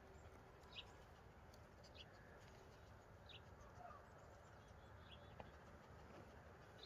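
Near silence, broken by a few faint, short high-pitched chirps every second or so.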